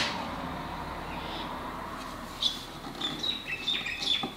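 A few short, high bird chirps in the second half, over faint steady room hum.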